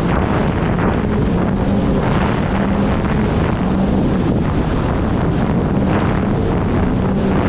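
Sea-Doo RXT-X RS 300 jet ski under way at a steady speed, its supercharged three-cylinder engine a steady drone beneath loud wind buffeting on the microphone.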